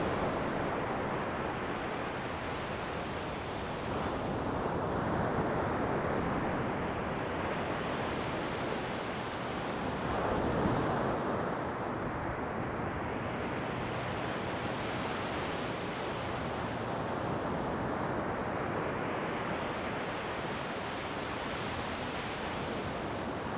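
Ocean waves surging and washing on a shore: a continuous rushing hiss that swells louder about four seconds in and again around ten seconds in.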